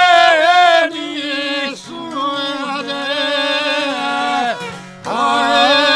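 Bosnian izvorna folk song: two men singing together in long, wavering held notes over two violins and a šargija (long-necked lute). The singing is loud for about the first second, softer in the middle, and loud again near the end.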